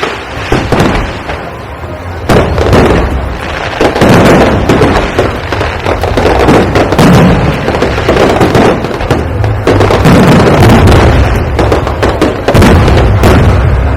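Aerial fireworks display: shells bursting in rapid, overlapping succession, with many sharp bangs and deep booms almost without a break.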